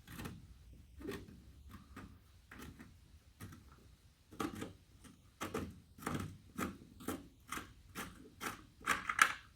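Thread tap turned by hand through a rusty fender-bolt hole in a 1965 VW Beetle body, scraping and clicking as it clears rust and grit from the existing threads. A series of short clicks comes about two a second, louder in the second half.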